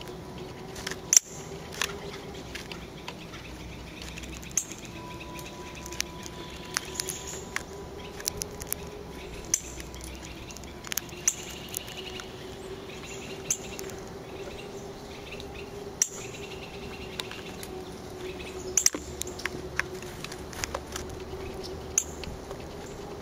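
Northern cardinal cracking black sunflower seeds in its beak: sharp, irregular clicks and cracks of the hulls splitting, scattered throughout, over a steady low hum.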